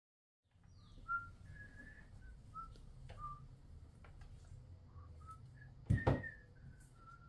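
Low background rumble with scattered short whistle-like chirps, each a brief note at a different pitch. About six seconds in there is a loud double knock.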